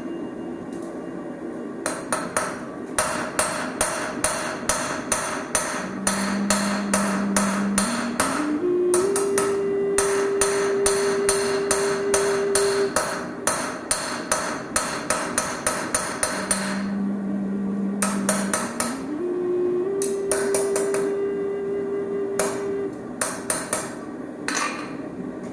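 Hammer striking Damascus steel on an anvil during forging: quick, regular blows, about three to four a second, in two long runs with a short pause between them. Behind them a steady tone steps up in pitch twice.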